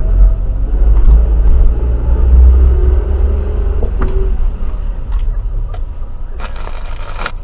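Car on the move: a deep engine and road rumble that slowly fades, with a brief burst of hiss near the end.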